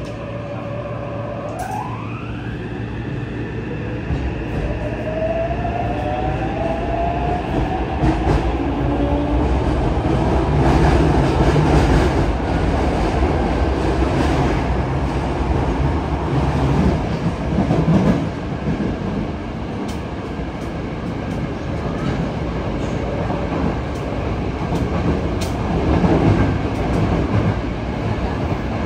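Yokohama Municipal Subway 3000S train's Mitsubishi IGBT-VVVF inverter and traction motors whining up in pitch as the train pulls away and accelerates, heard from inside the car. This gives way to the steady rumble of wheels on rail, with swells in loudness as it runs through the tunnel.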